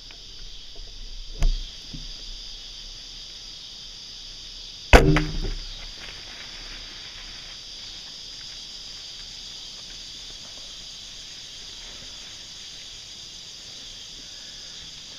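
A hunting bow shot, a single sharp, loud snap of the string about five seconds in, ringing briefly after. A smaller click comes just before, and crickets chirp steadily throughout.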